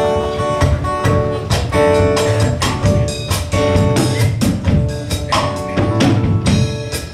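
Band playing the instrumental intro of a calypso tune: sustained chords over a steady drum and percussion beat.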